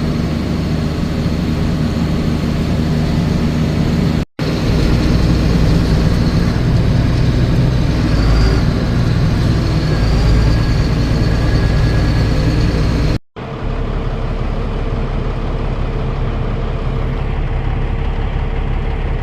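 Heavy farm machinery engine running steadily, in three stretches joined by abrupt cuts about four and thirteen seconds in; the last stretch is a little quieter.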